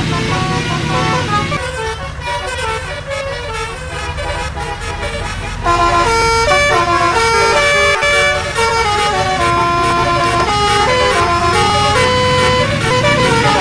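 A bus's telolet horn, a multi-tone musical air horn, playing a melody of stepping notes over the engine's low running rumble. It gets louder about six seconds in.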